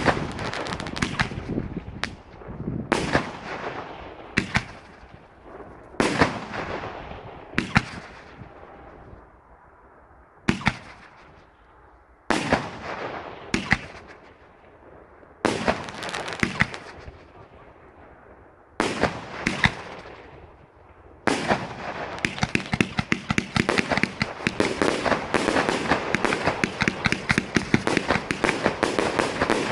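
Dragon DSO DR-500 78-shot firework cake firing: a dozen or so separate shots, each a sharp bang that fades away. About two-thirds of the way in, it breaks into a dense, rapid string of crackling reports that keeps going.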